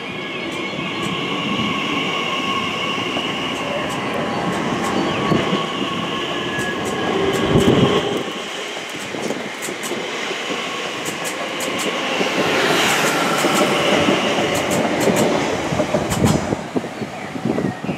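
Class 345 electric multiple unit pulling out and passing close by: a steady electric whine from its traction equipment over wheel and rail noise, with a run of sharp clicks as the wheels cross rail joints. A brief louder low rumble comes about halfway through.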